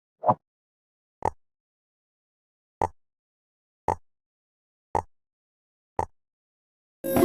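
Six short pops about a second apart, jigsaw pieces snapping into place in a puzzle game, with nothing between them. Background music starts again near the end.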